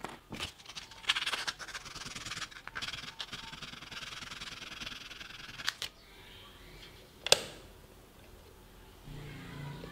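A pointed metal tool scraping and rubbing against a thin nickel-plated battery strip on a wooden bench, with a few sharp clicks, for about six seconds. About seven seconds in comes a single loud click from a soldering station's power switch being flipped on, and faint music comes in near the end.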